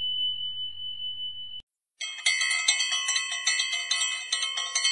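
Bell-like sound effects: a steady high ding that cuts off abruptly about a second and a half in, then after a brief pause a rapid run of ringing bell notes, several strikes a second.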